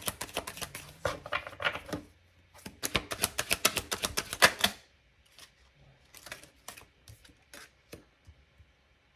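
Tarot cards being shuffled in the hands: two runs of rapid, crisp card flicks, the second ending a little before halfway, followed by a few scattered separate clicks as the cards are handled.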